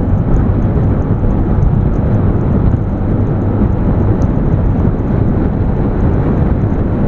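Steady wind rumble on the microphone of a Yamaha Fazzio 125 scooter riding at about 60 to 70 km/h during a full-throttle acceleration run; no clear engine note comes through.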